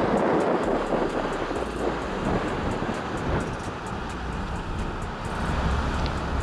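Ford F-150 Raptor's 3.5-litre twin-turbo V6 pulling the truck slowly up a dirt slope in low range with the rear differential locked, engine running steadily under load with the tyres working over loose dirt.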